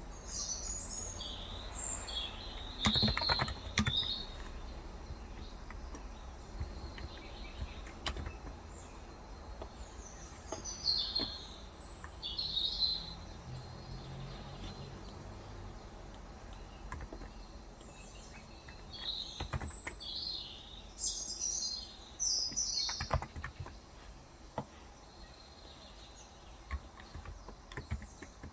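Small birds chirping outside in bursts of short high calls. A few scattered keystrokes come from a Cox Endeavor electrostatic capacitive tenkeyless keyboard with 35 g switches.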